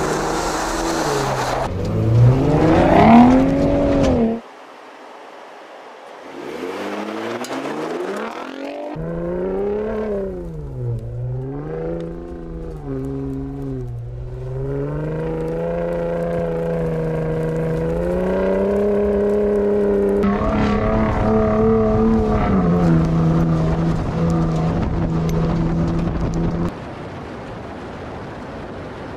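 2021 Ford F-150 Raptor's 3.5-litre twin-turbo V6 accelerating, its pitch climbing and dropping again and again as the automatic shifts up through the gears. The sound cuts off abruptly about four seconds in, then comes back and builds; near the end it changes suddenly to a steady rush of tyre and wind noise.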